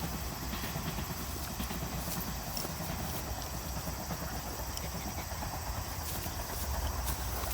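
Steady outdoor background noise with a low rumble and faint, light tapping.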